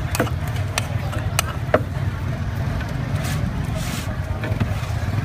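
Street ambience: a steady low rumble of passing traffic, with scattered sharp clicks and knocks.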